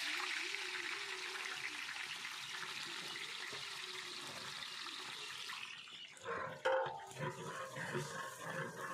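Chopped onions sizzling in a large pool of hot oil in a big aluminium cooking pot, a steady hiss that eases slightly after about five seconds. About six seconds in it gives way to rougher, uneven stirring noise with a sharp knock, the steel stirring rod striking the pot.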